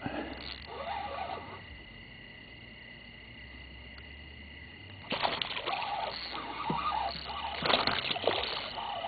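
Water splashing and sloshing, starting suddenly about five seconds in and running on unevenly, over a steady high-pitched background hum.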